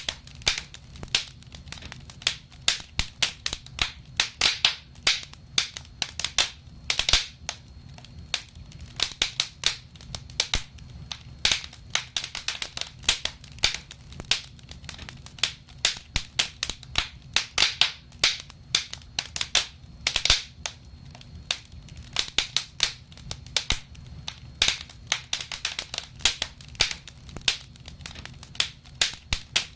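Wood fire crackling: irregular sharp snaps and pops, several a second, some louder than others, over a low steady rush of the flames.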